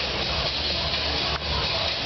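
Loud, distorted cheer routine music mix over the venue speakers, mixed with crowd cheering, with a brief break about one and a half seconds in.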